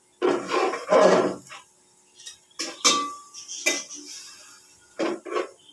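Long-handled metal ladle scraping and knocking against a metal cooking pot while stirring curry, in a run of strokes. One knock about three seconds in leaves a short metallic ring.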